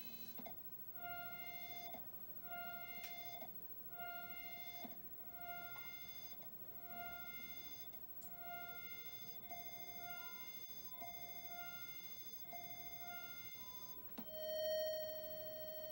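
The Commodore SX-64's SID sound chip sounding a short pulse-wave beep of the same pitch about once a second during a filter test, each beep's tone colour shifting as the test moves through low-pass, band-pass and high-pass filtering. Near the end a steady tone starts, swells and holds.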